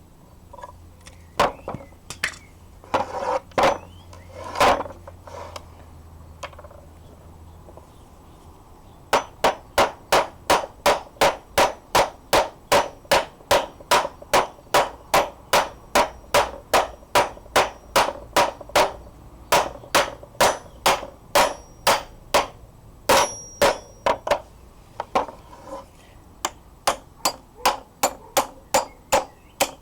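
A hammer striking metal in a steady rhythm of about two to three blows a second, each blow ringing briefly, after a few scattered knocks. This is the parts of an old wrought-iron vise being knocked loose while it is taken apart.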